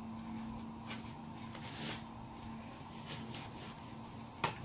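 Quiet kitchen room tone: a faint steady hum that stops about three seconds in, a brief soft hiss around two seconds in, a few faint ticks, and one sharp click near the end.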